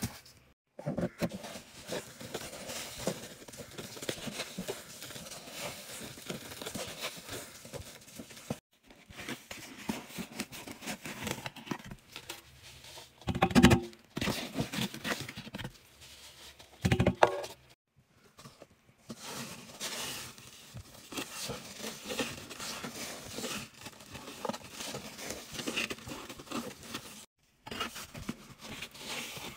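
A cardboard box of powdered laundry detergent being handled and torn open, with papery tearing and crinkling and the rustle of loose powder inside. Two loud knocks come a few seconds apart near the middle, and the sound drops out briefly a few times.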